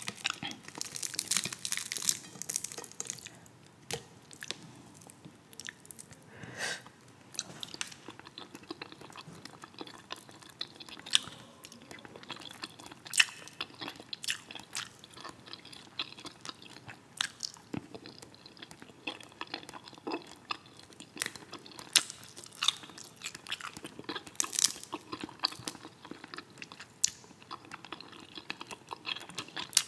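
Close-miked chewing of fried croaker, with irregular crisp crunches and crackles as the fish is torn apart by hand; a few crunches stand out louder than the rest.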